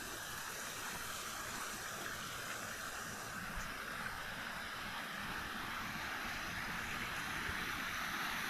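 Steady rush of a waterfall's falling water, a constant hiss that grows slightly louder toward the end.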